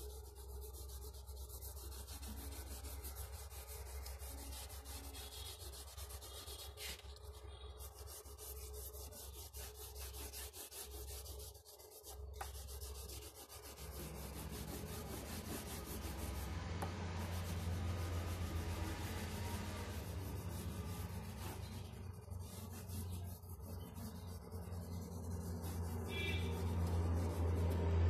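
Black crayon scribbling on paper in rapid back-and-forth strokes, a dry scratchy rubbing. A low steady hum comes in about halfway through.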